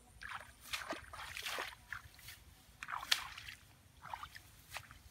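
Irregular wet squelching and sloshing as a person wades barefoot and reaches through shallow muddy water among grass, about a dozen uneven splashes.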